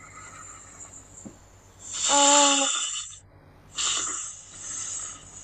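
A snake's hiss, heard twice over a video-call connection: a louder hiss about two seconds in with a short buzzy tone under its start, then a second, softer hiss about a second later.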